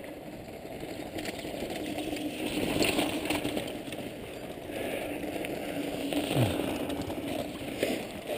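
Mountain bike rolling fast down a dirt and gravel trail: tyres on loose ground and the bike rattling over bumps, with a scatter of sharp clicks and knocks.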